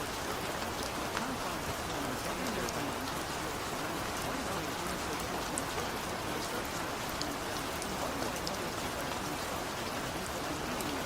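Steady rain falling on a surface, an even hiss with scattered sharp drop clicks throughout.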